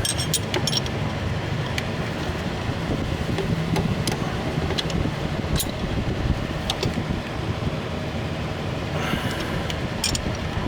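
Steady low rumble with scattered light clicks and taps of hand tools on metal, at irregular intervals.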